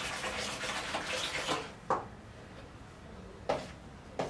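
Wooden spoon stirring wet cake batter of margarine, sugar and eggs in a plastic bowl, a wet churning sound that stops after about a second and a half. Three sharp knocks follow.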